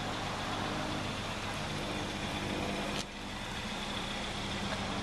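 Steady hum of road traffic, with a single sharp click about three seconds in where the sound briefly dips.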